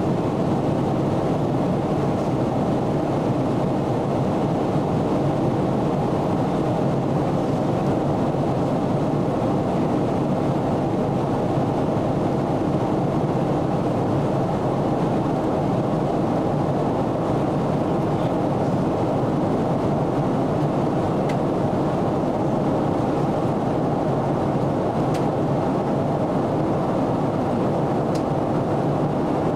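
Steady cabin noise inside a Boeing 777-300ER in flight: the even, low rush of airflow over the fuselage and the GE90 engines, unchanging throughout.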